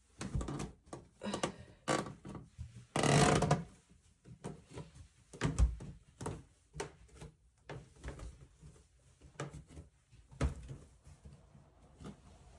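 Footsteps going down steep wooden stairs in an old house: an irregular series of thuds on the wooden treads, with the old stairs creaking. A longer, louder sound comes about three seconds in.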